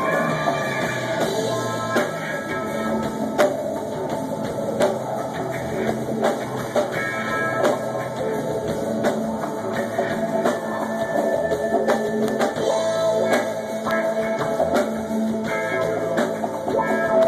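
Live rock band playing an instrumental stretch: drum kit keeping a steady beat under guitars, with no singing.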